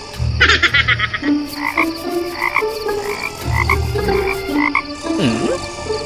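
Croaking animal calls: a rapid trill about half a second in, then short calls repeating about every 0.7 s, over a low sustained melody.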